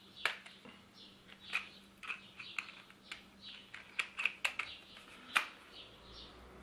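Irregular sharp plastic clicks and light scraping as the clip-on torque clutch attachment of a Parkside PAS 4 A1 cordless screwdriver is handled, fitted and turned against its locking keys.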